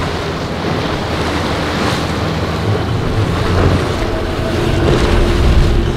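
Rough inlet waves and surf with wind buffeting the microphone, and a small cabin boat's outboard motor running as it crosses the chop; a steady engine tone comes up in the second half.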